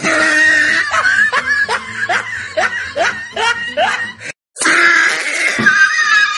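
Laughter sound effect laid over the clip: a giggling laugh in quick rising bursts, about two to three a second. It breaks off for a moment just after four seconds, then starts again.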